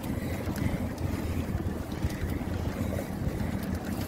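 Wind rumbling on the microphone of a moving bicycle, a steady low rush with no break.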